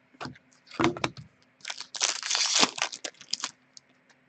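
Foil trading-card pack wrapper being handled and torn: a few crackles, then about two seconds of dense crinkling and tearing.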